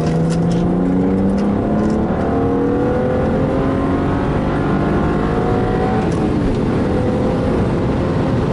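BMW 335i's N54 twin-turbo inline-six accelerating hard under load, heard from inside the cabin, its engine note climbing steadily in pitch. About six seconds in the pitch drops once, then starts rising again.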